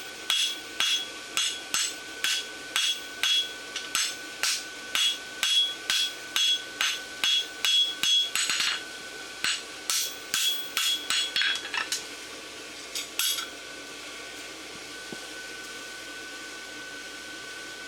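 A hand hammer striking hot 3/8 by 1 inch steel bar on an anvil, about two ringing blows a second, bumping up the outside edge of a horseshoe bar. The hammering stops about twelve seconds in, with two last blows a moment later, and then a steady hum remains.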